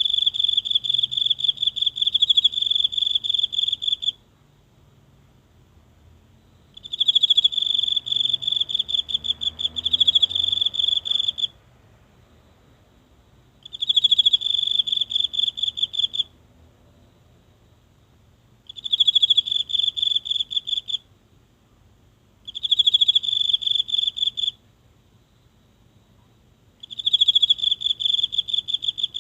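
A single insect singing in a high-pitched, rapidly pulsed trill, in repeated bouts of two to five seconds with pauses of a few seconds between them.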